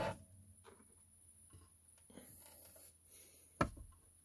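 A cannonball set down on top of a wooden display case with one sharp knock about three and a half seconds in, after a stretch of soft shuffling as it is handled.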